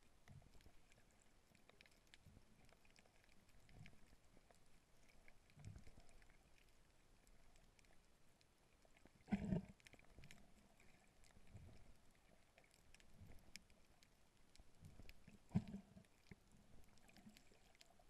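Faint, muffled underwater sound: soft low swishes and thuds of water moving as a snorkeler swims, with two louder thumps, one about halfway through and another a few seconds later.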